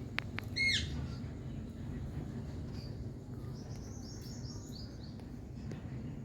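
Rose-ringed parakeet (Indian ringneck) calling: one loud, short, downward-sweeping screech about half a second in, then a quick run of short, high chirps around four to five seconds in, over a steady low background noise.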